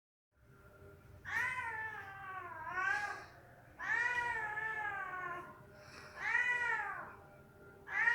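Domestic cat meowing repeatedly: about five long, drawn-out meows whose pitch bends down and back up.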